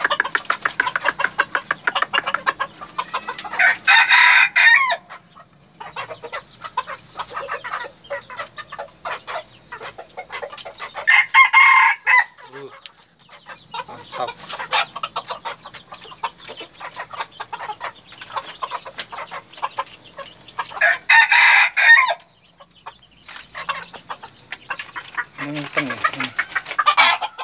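Junglefowl-type roosters crowing: four short, shrill crows spread through, over near-continuous rapid clucking from the birds.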